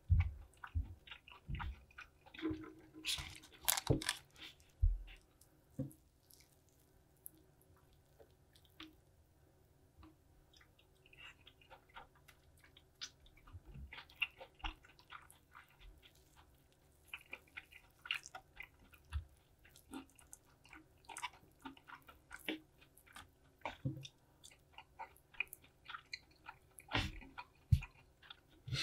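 Crisp fried-chicken batter crackling and crunching as pieces of Korean fried chicken are pulled apart by hand and chewed, with the loudest crunches about three to four seconds in and a quieter stretch a few seconds later.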